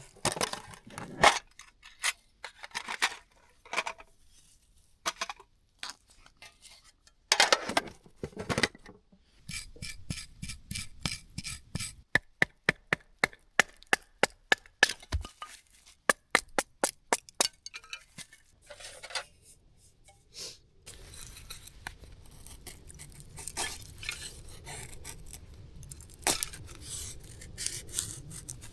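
Camp cookware and utensils clinking and knocking, with a quick run of evenly spaced clicks, about three a second, in the middle.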